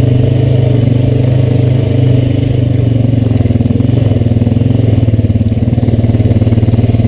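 Honda Rancher 420 ATV's single-cylinder engine running at a steady low trail speed, its exhaust pulsing evenly, with a slight easing off about two seconds in.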